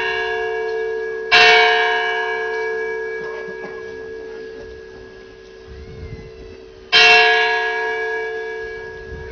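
A bell struck at the consecration of the Mass, marking the elevation of the host. It is struck about a second in and again about seven seconds in, and each strike rings on and fades slowly.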